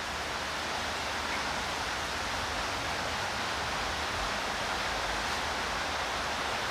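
Steady rain falling, an even hiss loud enough to drown out talk.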